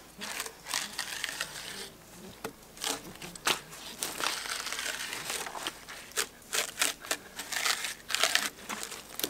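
Bark being pried and peeled off a felled log by hand: irregular crackling, crinkling and tearing with many sharp snaps.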